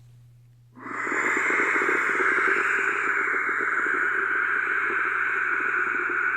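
A long, forceful breath blown out into the microphone, a steady hissing rush like wind that starts suddenly about a second in and keeps going.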